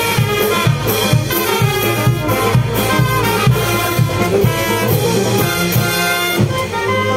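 Brass band playing a lively dance tune: trumpets, saxophones and sousaphones over a steady beat.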